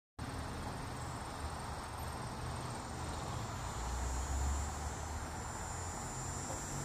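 Steady high insect-like trilling over a low hum; the hum swells about four seconds in.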